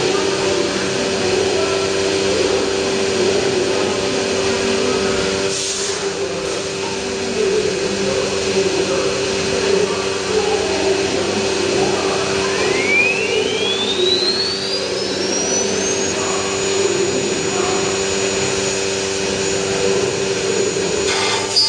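Steady machine hum from the CNC router, with a brief burst of noise about six seconds in. About twelve seconds in, the router spindle motor spins up with a rising whine that levels off at a high, steady pitch.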